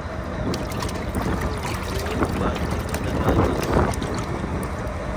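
Fishing boat at sea: a steady low rumble with wind buffeting the microphone, and a few scattered knocks.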